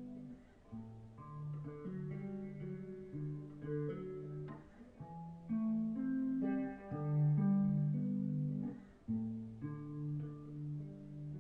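Live solo guitar, played fingerstyle: separate plucked notes ring on and overlap in an unsung instrumental stretch of an original song.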